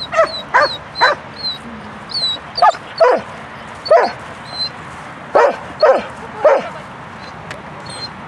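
German Shepherd barking excitedly, about nine loud barks in uneven runs that stop after about six and a half seconds.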